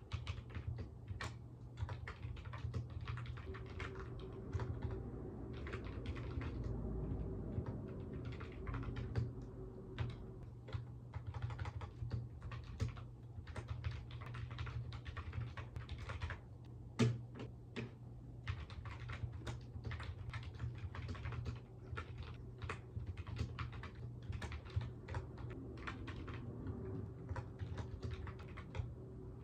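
Typing on a computer keyboard: irregular runs of key clicks, with one louder key strike about 17 seconds in, over a steady low hum.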